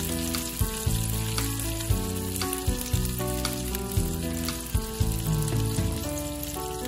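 Blueberry blintzes pan-frying in oil in a skillet, a steady sizzle, with background music with a regular beat over it.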